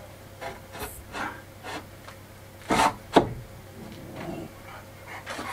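Timber rafters being shifted into place on a wooden roof frame: wood scraping and knocking on wood, with two louder knocks close together about three seconds in.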